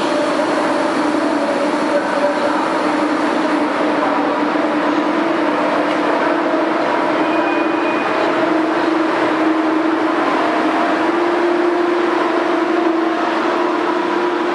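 Polish EU07 electric locomotive hauling a train of passenger coaches slowly past along the platform: a steady running noise of the locomotive and rolling wheels, with a low hum that rises slightly in pitch as it goes by.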